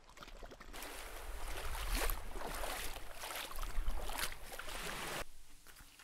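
Shallow seawater splashing and swishing as a person wades through it, in repeated surges; it cuts off suddenly near the end.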